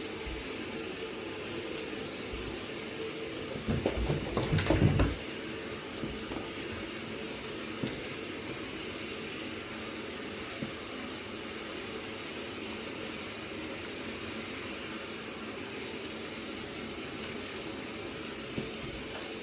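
Water running steadily from a tap into a bath, echoing in a small tiled room. About four seconds in, a louder burst of splashing and knocks lasts about a second.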